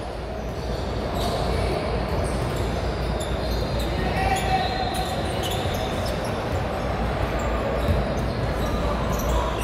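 Basketballs bouncing on a hardwood gym floor amid a steady din of indistinct voices, echoing through a large gymnasium hall with several games going at once.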